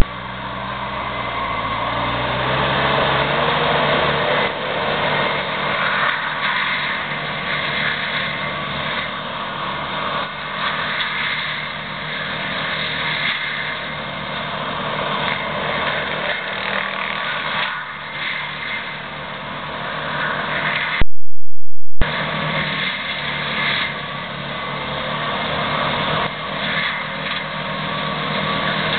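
Gyro-Trac 13 forestry mulcher working through cedar brush: its diesel engine runs hard under load with a steady mechanical din from the mulching head. The engine's pitch climbs over the first few seconds, and the sound cuts out for about a second around two-thirds of the way through.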